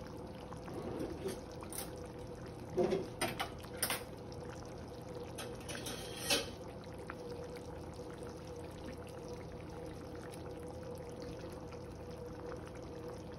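Chicken curry simmering in a pan, a steady bubbling of the gravy over a steady low hum. There are a few short clinks about three to four seconds in and again near six seconds.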